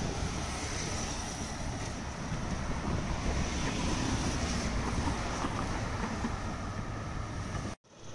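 Wind rumbling on the microphone over road and traffic noise, as heard while travelling in the open along a city road. Near the end it cuts out abruptly for a moment and comes back quieter.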